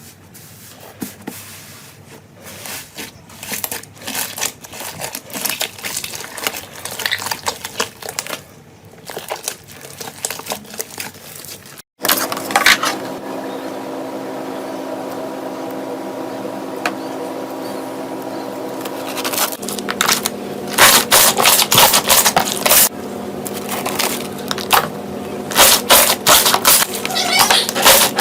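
Slime being squeezed and poked, making dense, irregular crackles and clicky pops that grow louder. About twelve seconds in the clip changes: a steady hum with several held tones runs under it, and the crackling and popping come back thick near the end.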